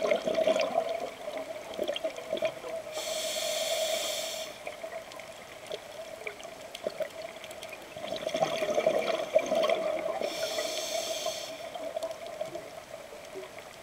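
Scuba diver breathing through a regulator underwater: two inhalations through the demand valve heard as hisses about three and ten seconds in, with exhaled bubbles rushing before them, over a steady low hum.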